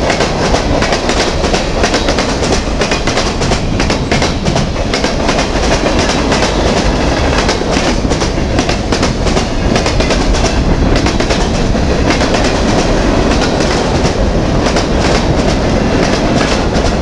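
Freight train cars, covered hoppers among them, rolling past close by: a steady loud rumble of steel wheels on rail with a constant clickety-clack of wheel clicks.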